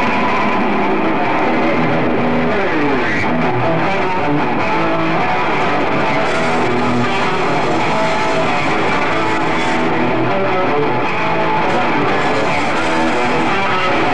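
Live rock band playing loud, driven by distorted electric guitar over drums, with a downward pitch glide about three seconds in.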